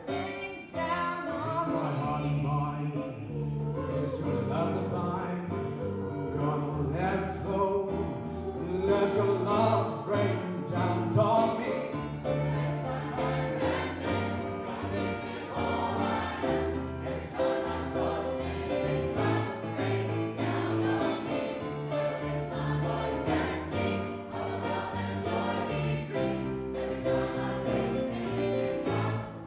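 Gospel choir singing a song in parts, with low held notes sounding underneath the voices.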